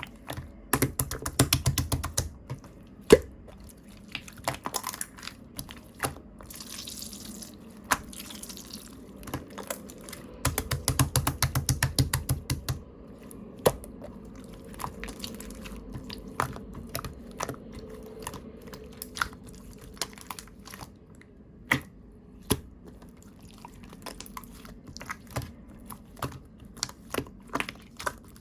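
Chewy, watery white slime being handled, giving sticky wet clicks and pops, with two runs of rapid clicking about a second in and about ten seconds in.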